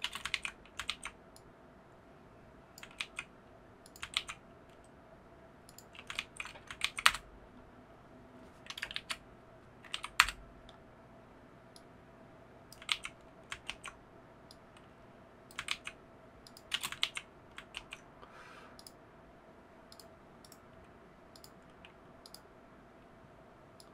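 Computer keyboard being typed on in short bursts of key clicks a second or two apart, with pauses between, over a faint steady hum.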